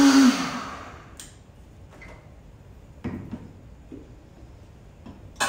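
Countertop blender puréeing sweet potato soup is switched off: its motor hum slides down in pitch and dies away within about the first second. Then come a few light knocks and clunks as the jar is lifted off the base and set down.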